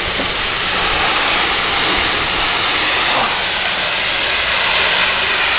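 Pressure washer running: a steady hiss of high-pressure water spray over the hum of its engine-driven pump.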